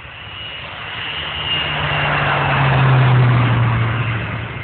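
Air Tractor crop-duster flying a low pass: its engine and propeller noise swells to a peak about three seconds in and then fades, the pitch dropping as it goes by.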